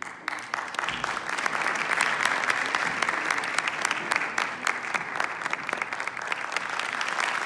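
Audience applauding, breaking out suddenly and continuing as steady, dense clapping.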